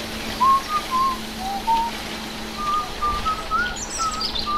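A whistled tune of short, separate notes that step up and down, with faint bird chirps higher up and a steady low hum underneath.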